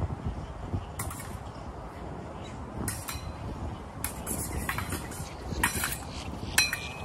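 Épée blades clashing in a bout: a handful of sharp metallic clinks and scrapes, some with a brief ring, including a quick flurry of contacts about four seconds in and the loudest near the end.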